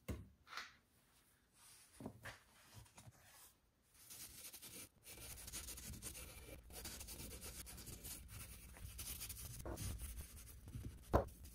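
A few light knocks, then from about four seconds in a quiet, steady scrubbing as chrome is rubbed with a polishing paste to lift surface rust spots.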